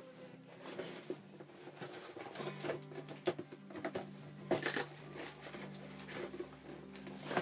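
Cardboard parcel being pulled open by hand: irregular rustling, scraping and crackling of cardboard and packing, with quiet background music underneath.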